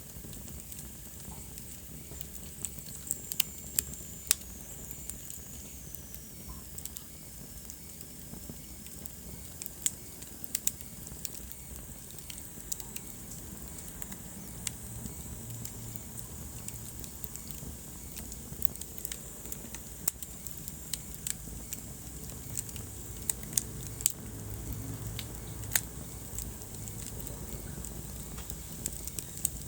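Wood fire burning in a fireplace: irregular sharp crackles and pops over a steady low rumble of the flames, with a faint high whistle sliding down in pitch a few seconds in.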